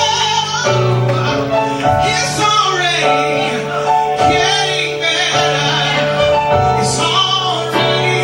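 Gospel choir singing with instrumental accompaniment, a steady bass note under sustained voices.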